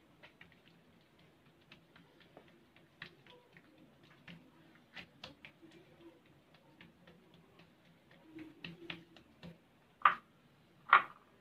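Hands working a thin buttered sheet of dough on a marble counter: scattered light ticks and taps, then two louder knocks about a second apart near the end as the bowl of butter is handled.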